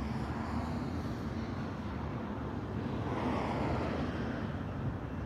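Low, steady vehicle rumble, with a swell that rises and fades about three to four seconds in.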